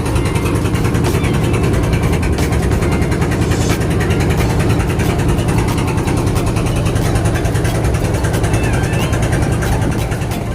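Vehicle engine and road noise: a steady low hum under an even rush, holding level throughout.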